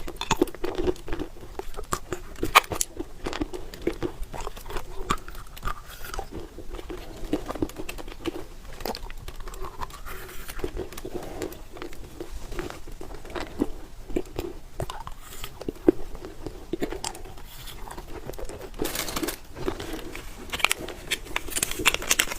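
Close-miked chewing of candy, with wet mouth sounds and frequent sharp crunchy clicks as it is bitten and chewed.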